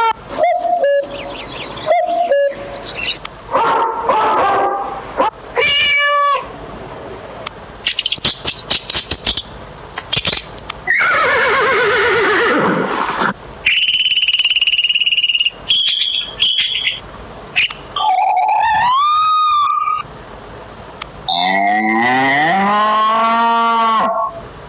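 A run of different animal and bird calls in quick succession, each lasting a second or a few seconds: pitched cries, rising and falling calls, rapid clicking trills and rough noisy calls.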